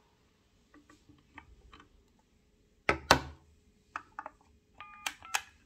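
Brondi retro push-button telephone off the hook: a steady low dial tone hums under a few light plastic clicks. About three seconds in come two loud clacks. Then buttons are pressed, each press a click with a short beep, and the dial tone stops at the first beep.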